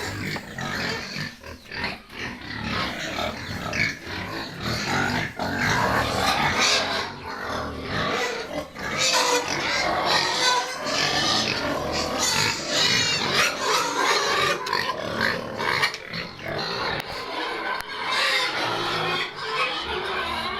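A pen of local, non-improved-breed pigs squealing and grunting continuously, many animals at once.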